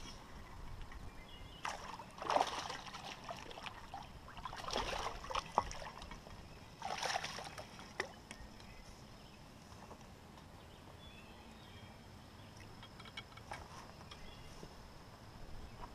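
Water sloshing and splashing in a few short bursts during the first half, with a sharp click just after them, then quieter.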